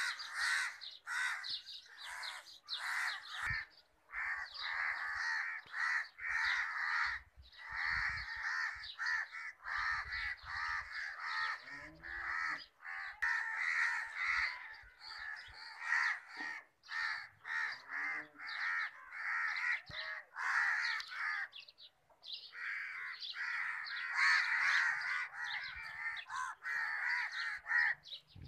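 Crows cawing almost without pause, many calls overlapping, with brief lulls about four seconds in and again near twenty-two seconds.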